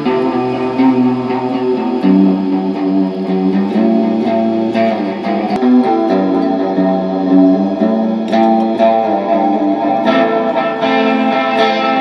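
Electric guitar played through effects pedals, ringing out slow, sustained chords that change every second or two in a loose improvisation.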